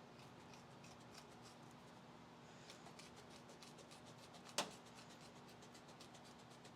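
Faint crinkling and snipping as a sheet of Kilmat foil-backed butyl sound-deadening mat is cut to shape, with one sharper click a little past halfway.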